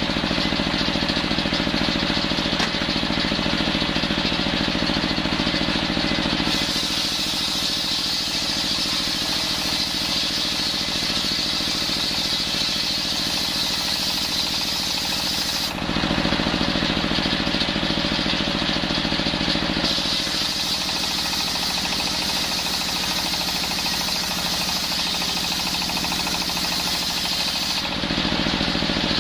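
Belt-driven bench circular saw running steadily and making two long rip cuts through coconut wood, one in the first half and one in the second. During each cut the steady running sound turns harsher and hissier, then drops back to the saw spinning free.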